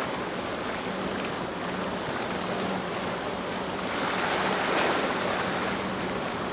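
A boat's engine droning steadily under the rush of wake and waves, with the water noise swelling louder about four seconds in.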